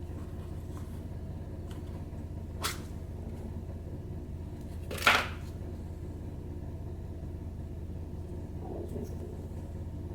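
Packaging being handled: two short, sharp crackling sounds, the second louder and longer, then a softer rustle near the end, over a steady low hum.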